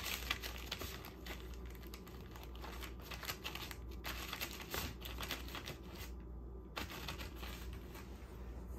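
Plastic shrink-wrap crinkling and rustling as a cat paws and noses at a wrapped tray of cans, in a run of crackly rustles with a short lull about six seconds in.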